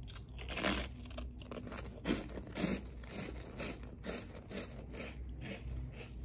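Biting into and chewing a hard, dry butter bread snack, with a run of crisp crunches, the loudest ones near the start and around two seconds in.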